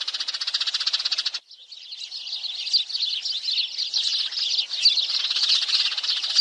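A flock of sparrows chirping rapidly and continuously, many short overlapping calls, the kind of sparrow-call recording played as a lure to draw sparrows to a trap. The chirping dips sharply for a moment about a second and a half in, then carries on.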